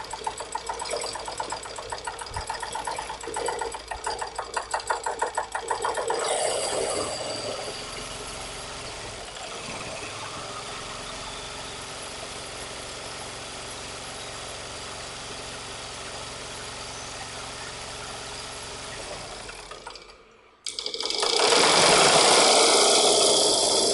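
Replacement sewing machine motor on a test run. It starts with a fast rhythmic clatter for about six seconds and then settles into a steady hum. About twenty seconds in it cuts out briefly, then starts again louder.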